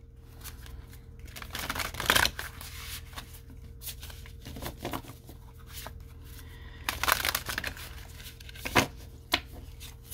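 Tarot cards being shuffled and dealt onto a table: a few short bursts of riffling and card slaps, the loudest about two seconds in and again around seven seconds, with softer rustling of the deck between them.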